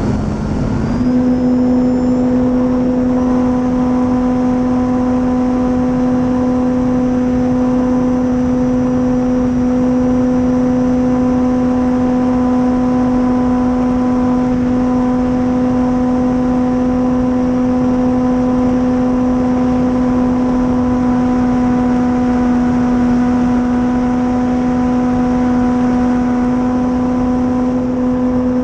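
Dual Sky 480 brushless electric motor and propeller of an RC warplane, heard from the onboard camera. It gives a steady whine that steps up a little in pitch about a second in, then holds at an even throttle.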